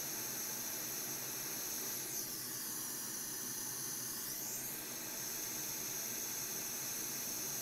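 Steady high-pitched hiss with no distinct events, and a faint high sweep that glides down and back up from about two to five seconds in.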